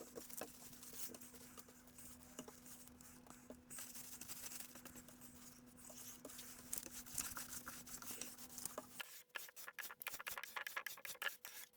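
Faint scratching and rubbing with scattered light clicks and taps, as of hand work on wood; a low steady hum stops suddenly about nine seconds in.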